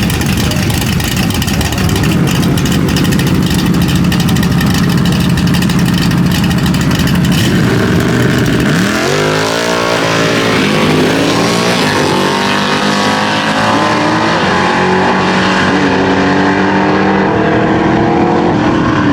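A car engine runs roughly at low speed, then accelerates hard about eight or nine seconds in. Its note climbs quickly at first, then rises more slowly.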